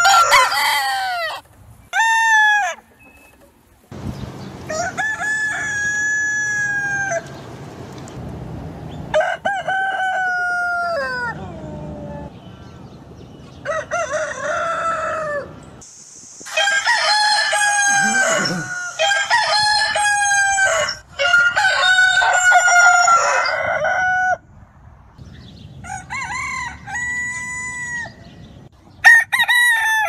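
Domestic roosters crowing, one cock-a-doodle-doo after another every couple of seconds, about a dozen crows in all.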